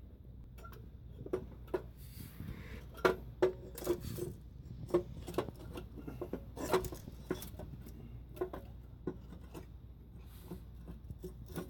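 Irregular metallic clinks and knocks of a steel exhaust header being worked up against the engine and onto its studs over new gaskets, the loudest cluster about three to seven seconds in.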